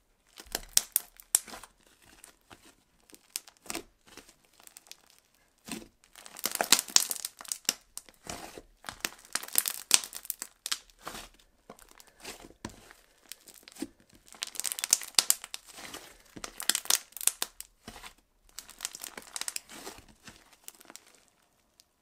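Foamy white slime, made with shaving foam, being kneaded, squeezed and stretched by hand. The air trapped in it crackles and pops in irregular bursts of fine, crunchy crackling, with short quieter pauses between squeezes.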